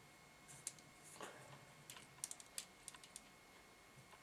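Faint, irregular small clicks and ticks of a soldering iron being worked at a wire joint on a model train motor's terminal. They come in a cluster over about three seconds, the sharpest around two seconds in.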